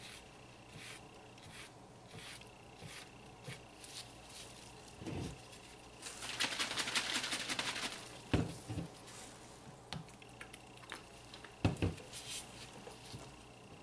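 Silicone spatula stirring and scraping soap batter in a plastic measuring pitcher: soft scrapes and light taps, a louder stretch of rapid scraping about six seconds in, and a few dull knocks against the pitcher.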